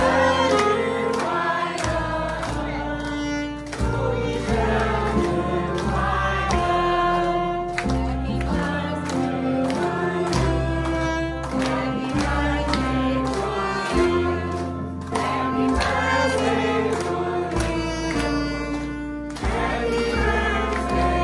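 Music: a song with singing voices over a steady beat and a bass line that changes note every second or two.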